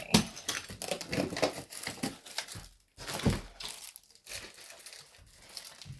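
Plastic packaging crinkling and rustling as it is handled, in irregular bursts. It thins out to occasional faint rustles after about three and a half seconds.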